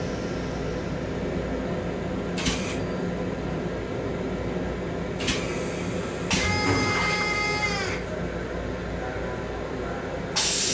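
Running noise of an M7 electric railcar in motion, a steady low rumble heard inside its small restroom. There are a couple of brief hissing bursts, and about six seconds in a held chord of several tones lasts a second and a half before dropping away. A loud rush of noise starts near the end.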